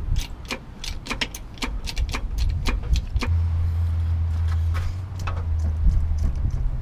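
A run of sharp clicks and scrapes as a handheld camera is handled and set down on a concrete driveway beneath a truck. After about three seconds this gives way to a steady low hum lasting a couple of seconds, and a second low hum starts near the end.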